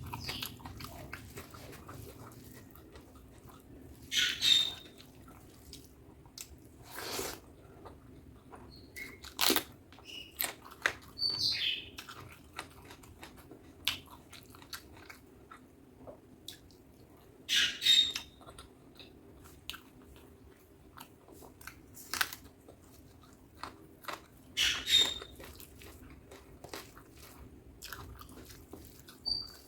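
Close-miked chewing of butter chicken and rice: soft wet mouth sounds, with short louder bursts every few seconds as bites are taken and chewed.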